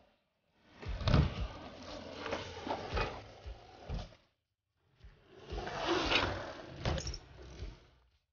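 A BMX bike riding on skatepark ramps: tyres rolling over the ramp with several sharp knocks from landings and the bike hitting the ramp. It comes in two stretches that cut off suddenly into silence.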